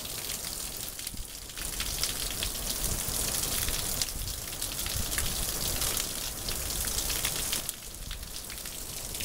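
Heavy rain pouring down: a dense, steady hiss of drops splashing on wet ground. It grows louder about a second and a half in and eases again near the end.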